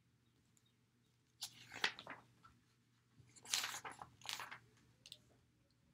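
Paper pages of a picture book rustling and crackling as they are handled and turned, in two short spells about two seconds apart.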